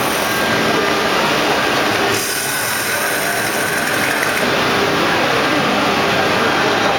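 Woodworking machinery, CNC wood lathes among them, running in a machinery exhibition hall: a dense, steady mechanical din whose tone shifts about two seconds in.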